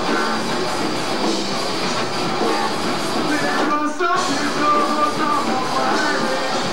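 Live rock band playing loud with electric guitar to the fore, recorded on a camcorder microphone in the room. The band stops for a split second about four seconds in, then crashes back in.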